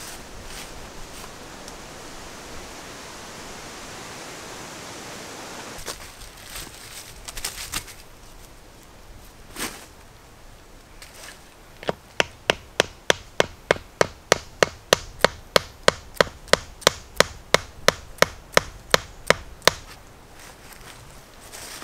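Hatchet driving a tent peg into the ground to stake down a tarp corner: about two dozen sharp, evenly spaced knocks, roughly three a second, starting about halfway through. Before them, a steady hiss and a few scattered rustles and knocks as the peg is set in the leaf litter.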